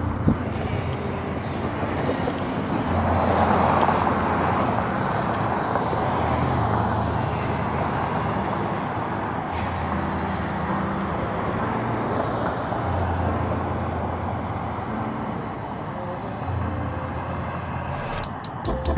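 Road traffic noise, with a vehicle passing louder about three to four seconds in.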